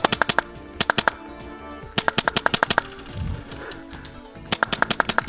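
Airsoft gun firing on full auto in short bursts, four strings of rapid shots at about a dozen shots a second. A dull low thump comes between the third and fourth bursts.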